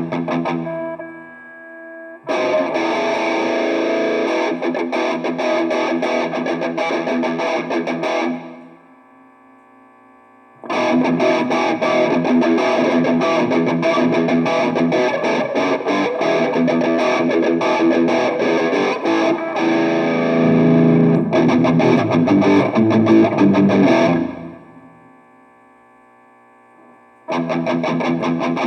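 Electric guitar played through a Metal End distortion pedal and amp: heavily distorted riffing in three passages. Between them are short pauses where the sound drops to a faint ringing.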